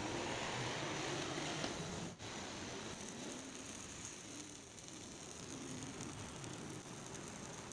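Electric arc welding crackling steadily as weld is built up on the dynamo shaft's damaged thread.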